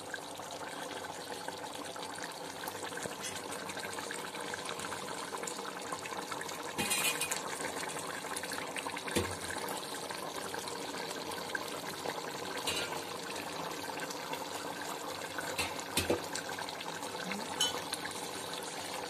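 Watery chicken curry boiling steadily in a large pot. A metal ladle stirs through it and knocks against the pot a few times.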